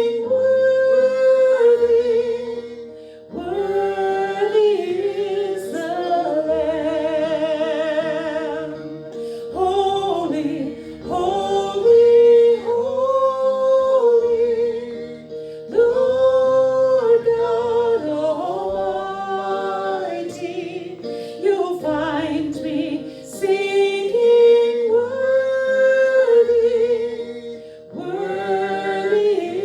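Worship song: a lead singer with vibrato sings long phrases over sustained held chords.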